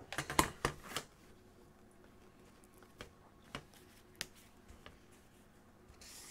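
A metal carpenter's square knocked and set down on a plywood template: a quick cluster of knocks in the first second, then a few faint taps and clicks as it is positioned.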